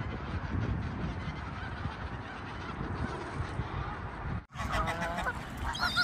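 A flock of Canada geese honking, with higher calls from gulls among them. About four and a half seconds in the sound breaks off for a moment, then the honking comes back louder and clearer.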